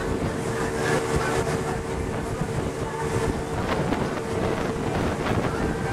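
A running vehicle: steady dense noise with a constant mid-pitched hum.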